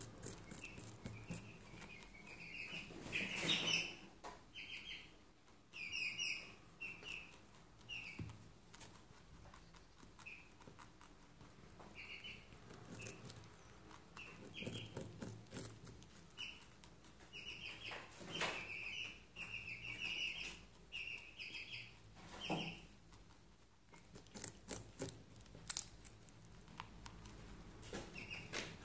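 Dwarf rabbit biting and chewing a raw carrot: irregular bursts of crisp crunching and clicking, with short pauses between them.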